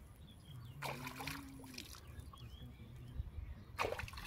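Shallow water splashing and trickling as a rope is hauled in by hand at the water's edge, with two short splashes about a second in and near the end. A brief low pitched sound comes with the first splash.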